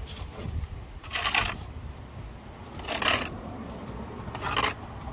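Steel bricklaying trowel scraping wet sand-and-cement mortar off a freshly laid brick wall, three short gritty scrapes about a second and a half apart.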